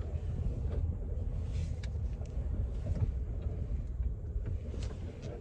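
Steady low rumble of a car in motion, with a few faint clicks and taps over it.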